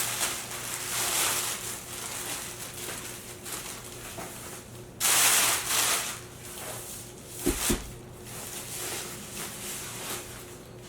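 Handling noise while unpacking a speaker: rustling and scraping, with a loud rustle about five seconds in and a couple of knocks and a low thud a little later.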